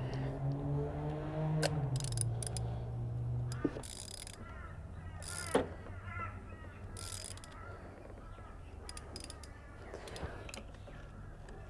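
Socket ratchet clicking in short bursts as it snugs a new spark plug down past finger tight, with a low steady hum under the first few seconds.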